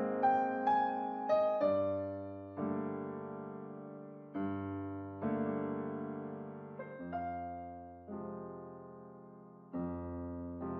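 Slow, gentle piano music: chords struck about every one to two seconds and left to fade, with a few higher melody notes in the first two seconds.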